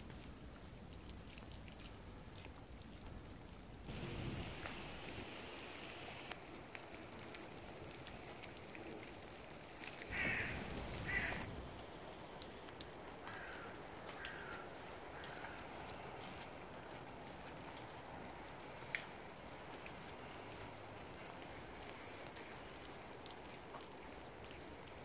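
Quiet outdoor ambience in wet falling snow, with scattered light drips and ticks. A bird calls twice about ten seconds in, then gives a few softer calls shortly after.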